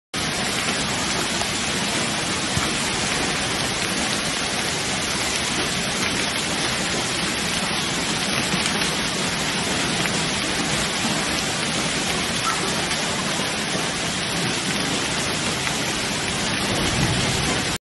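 Heavy rain mixed with hail pouring down, a steady dense hiss of drops and hailstones striking a lawn and paving.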